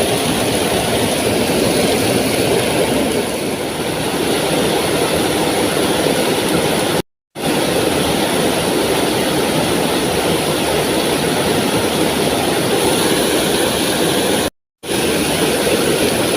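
Waterfall rushing: a loud, steady wash of falling water, broken twice by brief silences.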